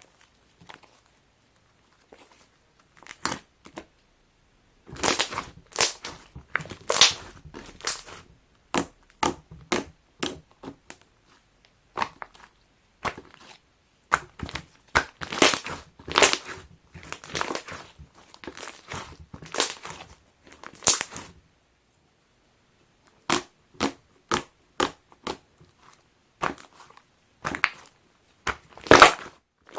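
Slime squished and pressed by hand, giving runs of sticky clicks and pops with short pauses between them.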